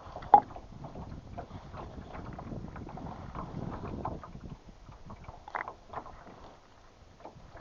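Irregular small knocks and clatters of gear being handled in a boat, with one sharp loud knock about half a second in.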